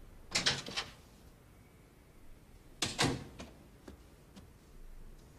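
Two short bursts of clattering knocks, about two and a half seconds apart.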